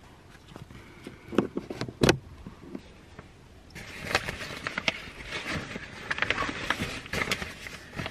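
Black fabric window covers being handled and fitted inside a car. There are two sharp knocks in the first couple of seconds, then busy rustling of the fabric with many small clicks.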